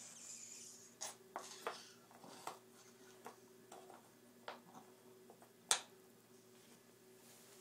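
Wooden alphabet peg puzzle pieces tapping and clicking against the board as they are handled: a scattered run of light knocks, the sharpest about three-quarters of the way through.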